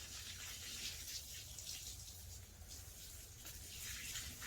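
Water spraying from a hose onto stacked shiitake mushroom logs: a faint, steady hiss that swells and fades as the spray moves.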